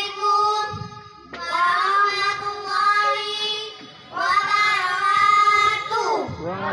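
Children singing, holding long, steady notes in two phrases: one begins about a second and a half in, the other about four seconds in, with a short break between.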